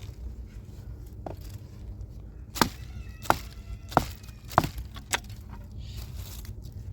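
Wood being chopped: four sharp strokes about two-thirds of a second apart, with a lighter knock before and after them.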